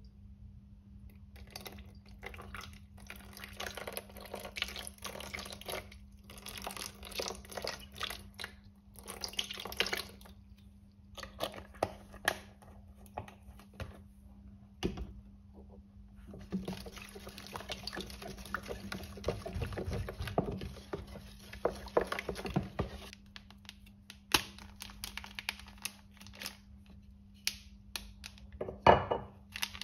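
Water running from a tap in short spells, with a few knocks and a louder knock near the end, over a steady low hum.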